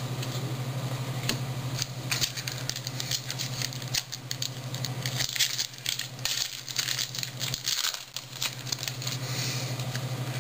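Trading cards being handled and flipped through one after another, a run of quick light clicks and flicks, densest through the middle, over a steady low electrical hum.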